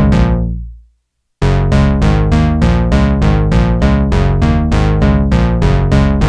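Sequential Prophet X synthesizer playing a fast sequenced pattern of plucky, quickly decaying notes over a deep bass. The pattern fades out just under a second in, stops for about half a second, then starts again.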